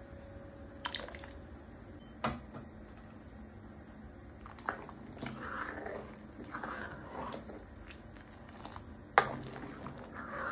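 A metal ladle stirring milk in a metal pot: sloshing liquid that starts about halfway through, with a few sharp clicks and knocks, the loudest about nine seconds in.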